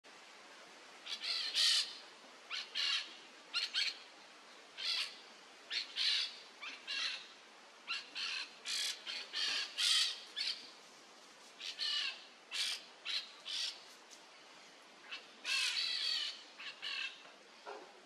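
Peach-fronted parakeets calling: a long run of short, harsh screeches starting about a second in, often two or three in quick succession, with a pause of a couple of seconds late on.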